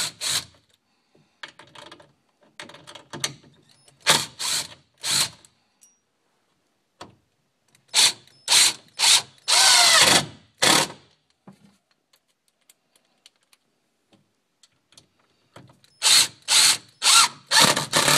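Cordless drill/driver run in short trigger pulses of a fraction of a second, in clusters, with one longer run near the middle whose motor pitch rises and falls. It is driving screws to reset the plate so the door latches.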